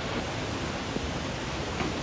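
Nachi Falls waterfall: a steady rushing of falling water, with a couple of faint clicks about halfway through and near the end.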